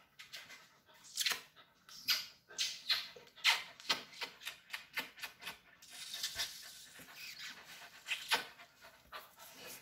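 A dog licking a person's face as she kisses it: a run of short, irregular licking and kissing smacks, loudest a little over a second in, around three and a half seconds in, and near the end.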